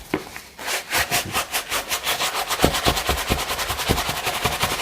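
Bristle brush scrubbing the upper of a sneaker back and forth in rapid strokes, about eight a second.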